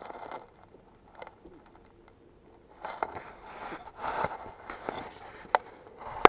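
Someone moving about on foot on a dirt road, with scattered scrapes, rustles and clicks and a quiet stretch early in. A quick cluster of loud sharp clicks comes at the very end.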